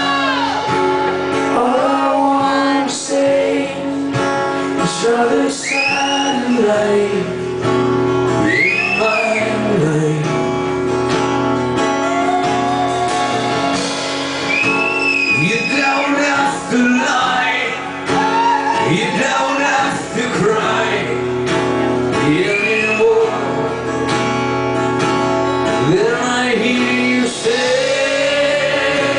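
Male lead vocalist singing a rock song live over his own strummed acoustic guitar.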